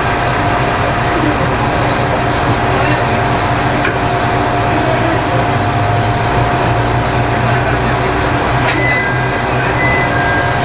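Idling diesel engine of a Mizushima Rinkai Railway MRT300 railcar standing at a station, a steady hum with a constant whine. Near the end a click is followed by short high beeps.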